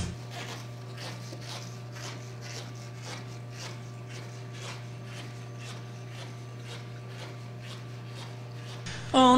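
Room tone of a large empty hall: a steady low hum, with faint irregular ticks and rubbing throughout. Music comes in suddenly near the end.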